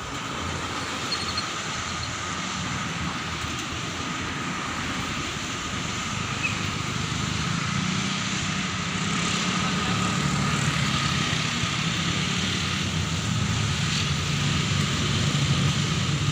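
Heavy vehicle engine droning as it pulls up a steep hill, growing steadily louder as it comes closer.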